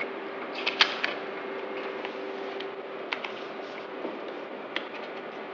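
A printer running as it prints a breath-test result: a steady hum with a few short clicks and creaks, about a second in, near three seconds and near five seconds.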